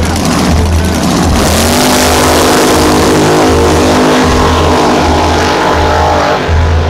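Front-engine dragster doing a burnout: the engine revs up about a second and a half in and holds at high revs while the rear tyres spin. Music with a steady low beat runs underneath.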